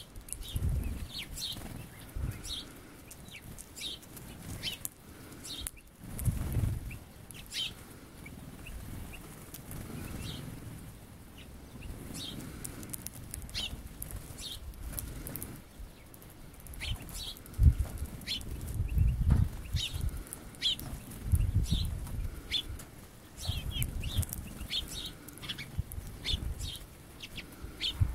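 Small songbirds chirping, many short high calls scattered throughout, with repeated low fluttering wingbeats of birds landing and taking off.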